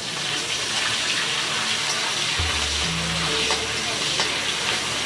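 Sliced onions sizzling steadily in hot oil in a steel kadhai, stirred with a metal spatula that now and then clicks against the pan.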